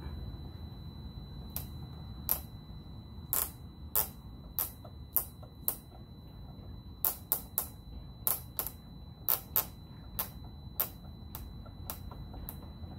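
Screwdriver turning plastic screws into a motorcycle fairing by hand: a string of about twenty sharp, irregular clicks, with a faint steady high tone underneath.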